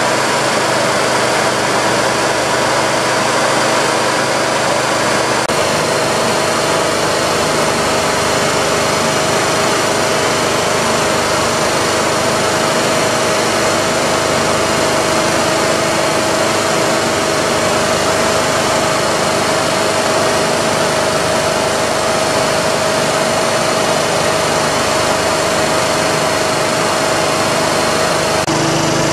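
J.P. Sauer WP311L marine piston air compressor running steadily under power, with a constant mechanical hum and clatter. Its tone shifts slightly about five seconds in and again near the end.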